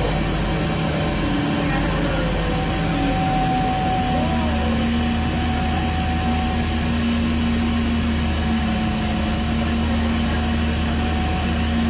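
Steady engine drone of a boat underway, a low hum with a few steady tones that shift slightly in pitch about four seconds in.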